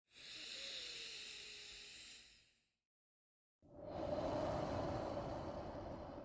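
A person's slow, paced breathing for a breathing exercise: a hissy breath of about two and a half seconds, a second of silence, then a longer, fuller breath of about three seconds.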